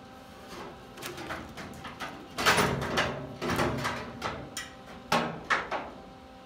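Irregular metal knocks and scraping as a steel roll pan is worked into place on the back of a pickup. The loudest clank comes about two and a half seconds in, with a few sharper knocks near the end.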